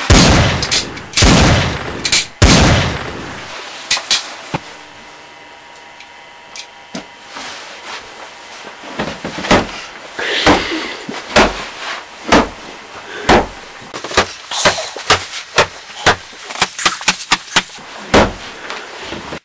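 Pistol gunfire: several loud shots with a ringing tail in the first few seconds, then after a lull a long run of quick, sharp shots that come faster, two or three a second, near the end.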